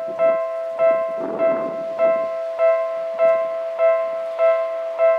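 Japanese railway level-crossing alarm ringing: an electronic bell tone struck evenly, about every 0.6 seconds, warning that a train is approaching.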